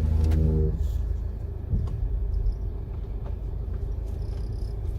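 Road rumble inside a moving Mercedes-Benz GLK 220's cabin. There is a short creaking tone in the first second and a few light knocks over small bumps. The creak is the heater blower motor squeaking on bumps, typical of unlubricated bearings.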